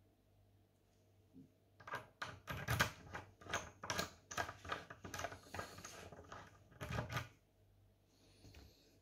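Irregular run of sharp clicks and light metallic clatter, from about two seconds in to about seven seconds in: a key and small metal locksmith tools being handled around a euro lock cylinder held in a bench vise.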